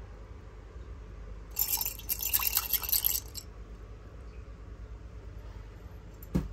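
Small hard candies clinking and rattling against glass for about two seconds, then a single sharp tap near the end.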